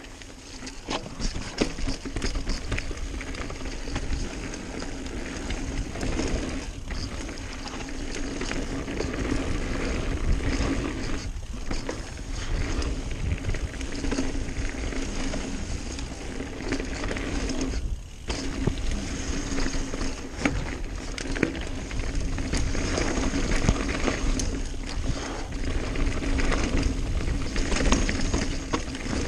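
Mountain bike riding fast down a dirt singletrack: a steady rush of tyre and wind noise with frequent clattering knocks and rattles over bumps. It drops away briefly three times.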